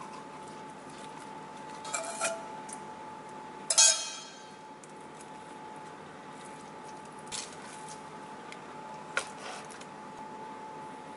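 A metal spoon clinking and tapping against a stainless steel mixing bowl a few times, the loudest strike about four seconds in with a short metallic ring, over a steady faint hum.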